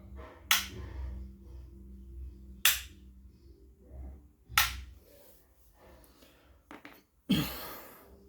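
Four sharp snaps or clacks, roughly two seconds apart, the last one longer and noisier.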